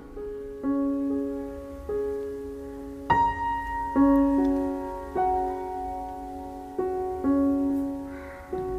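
Soft, slow solo piano music: single notes and chords struck about once a second and left to ring out.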